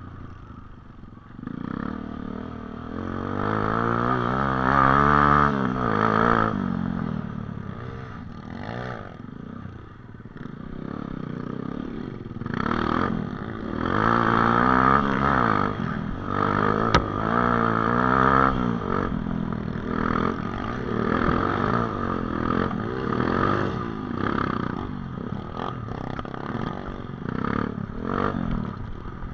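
Dirt bike engine revving up and easing off again and again as it is ridden over a rough dirt track, its pitch climbing and dropping with the throttle. There is one sharp click partway through.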